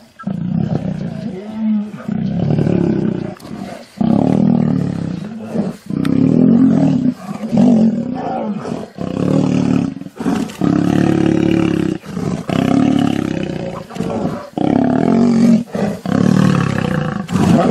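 Male lions roaring in a fight: loud calls of about a second each, one after another with short breaks between them.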